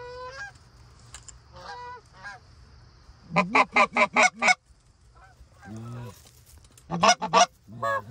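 Canada goose honking: a few faint honks in the first two seconds, then a quick run of six loud honks a little over three seconds in, a lower single honk around six seconds, and three more quick loud honks near the end.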